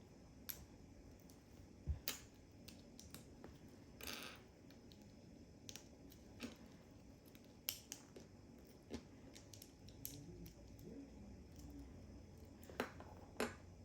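Small plastic building bricks being handled and clicked together, with scattered faint clicks and a brief rustle.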